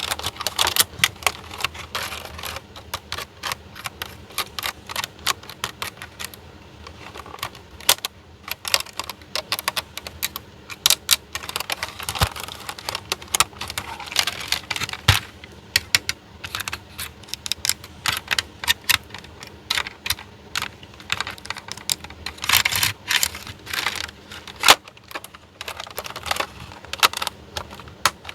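Small plastic toy pieces being handled, clicking and tapping against each other in quick irregular runs, like miniature playset parts being unpacked and set out.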